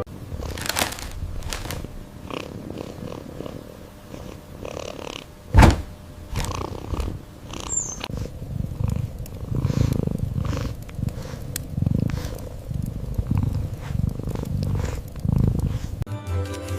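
A cat purring, swelling and fading in slow, even breathing cycles, with one sharp knock about five and a half seconds in.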